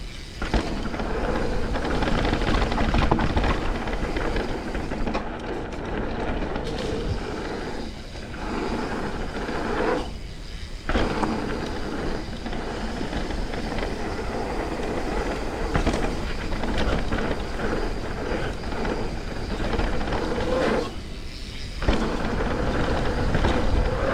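Mountain bike running down a muddy dirt trail: tyres rolling over dirt and roots, the bike rattling, and wind on the on-bike or helmet microphone, with three brief quieter moments.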